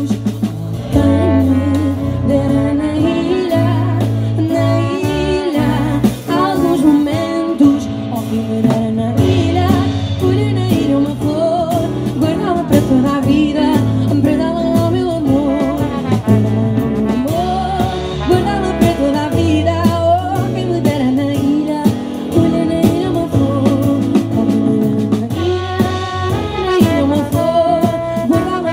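A live band playing music: a melody line over a steady, pulsing bass beat.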